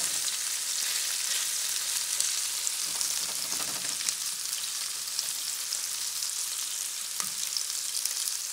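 Spicy seasoned chicken pieces and sliced onion sizzling in oil in a nonstick frying pan, a steady high hiss, with a few light clicks and scrapes as a utensil moves the food around.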